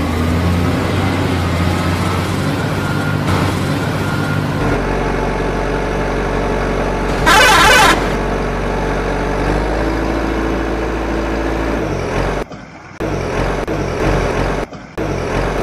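Truck engine running steadily, with a loud burst lasting under a second about seven seconds in and a few sudden short cut-outs near the end.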